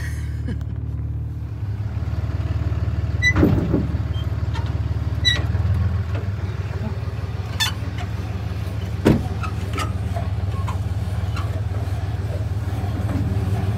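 Pickup truck engine idling steadily, with three sharp knocks over it while a gooseneck horse trailer is hooked up to the hitch in the truck bed.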